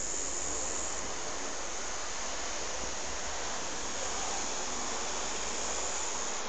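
Steady, even rushing noise of an Airbus A320-232's IAE V2500 turbofan engines as the airliner flies over, heard from the ground.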